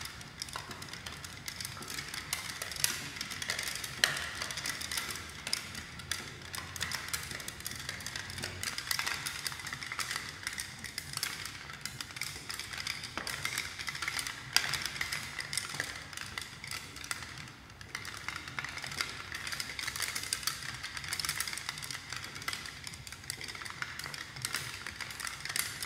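Hanging acrylic plates of a motorized kinetic sound sculpture clattering against one another in a dense, irregular stream of light clicks and taps, over a low hum.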